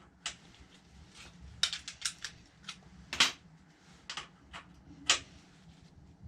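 Metal spanners clinking and knocking against each other and the axle nut: about nine irregular sharp clicks, the loudest a little past three seconds in and again about five seconds in.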